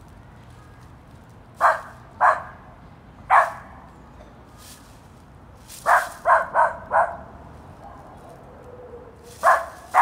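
West Highland White Terrier barking in short, sharp single barks: three spaced barks, then a quick run of four, then two more near the end.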